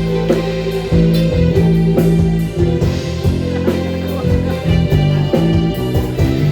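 Live band playing an instrumental break between sung verses of a pop ballad, with held chords, a bass line and drum hits keeping time.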